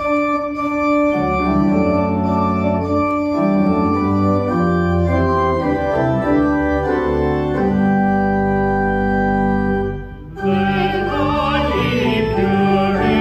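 Organ playing held chords that change every second or so. After a short break about ten seconds in, a singing voice with vibrato comes in over the organ.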